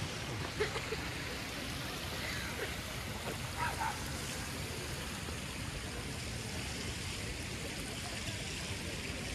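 Steady rush of running water, with faint distant voices.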